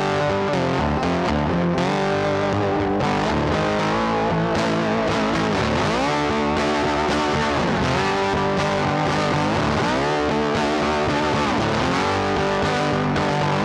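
Music led by distorted electric guitar, with notes that bend and slide in pitch a few times.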